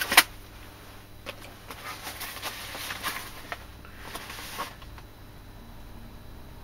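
Parcel packaging being handled and opened: rustling and crinkling with scattered clicks, starting with a sharp snap.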